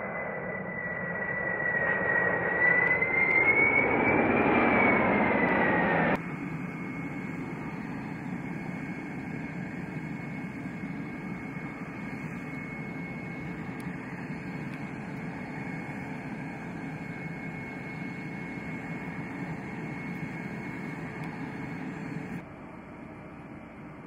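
Boeing 747 air tanker's four jet engines on a low pass: a loud rush with a high whine that rises and then falls, cut off abruptly about six seconds in. After that comes a steadier, quieter jet whine and hum from the aircraft on the ground, which drops to quieter background about two seconds before the end.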